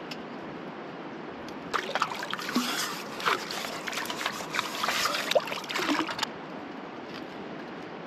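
Water splashing and sloshing, irregular and close, over a steady rushing background; the splashing starts about two seconds in and cuts off suddenly about six seconds in.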